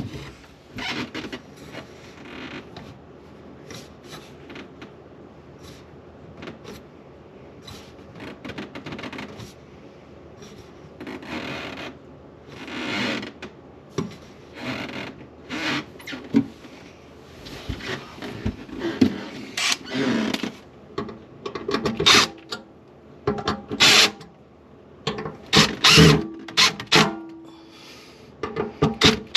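Irregular metal clicks, knocks and scraping as a garbage disposal's sink mounting assembly is adjusted and snugged tight by hand, growing louder and busier about halfway through.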